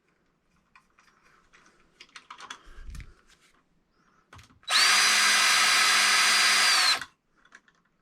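A few faint clicks of hand-starting outlet mounting screws, then a power drill runs steadily for about two seconds, driving a screw into the outlet box, its high whine dropping as it stops.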